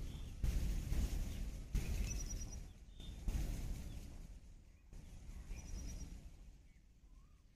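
Outdoor ambience: a low rumble with faint, short bird chirps heard a few times. The background changes abruptly every second or two where the clips are cut together.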